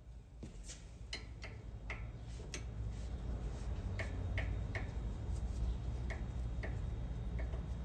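Sharp clicking from the brakes of a 2008 Kia Sportage, a few uneven clicks a second, over a low rumble that grows louder.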